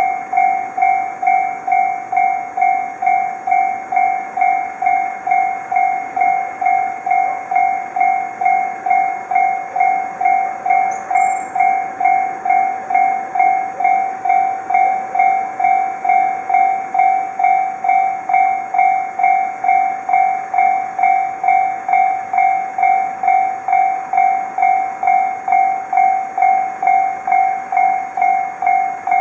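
Japanese railroad crossing warning bell ringing, a steady repeated two-tone ding at about two strikes a second, signalling that a train is approaching.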